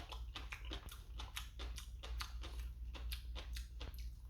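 Close-up chewing of a vegetable side dish: a run of irregular small crunchy clicks, over a steady low hum.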